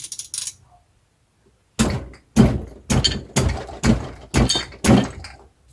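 Hammer blows on the aluminium crankcase of a Yamaha XT250 engine: seven sharp knocks, about two a second, starting near two seconds in, tapping the case halves loose to split them apart.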